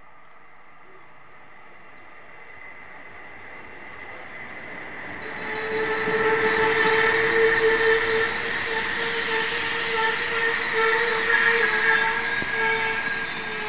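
Diesel railcar running into the station: its engine and wheels on the rails grow louder as it approaches, then stay loud as it rolls past alongside, with a steady whine throughout.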